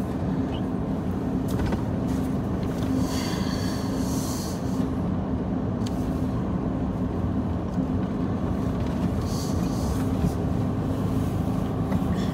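Steady low hum of a car's engine and tyres heard from inside the cabin while driving slowly, with two brief swells of hiss.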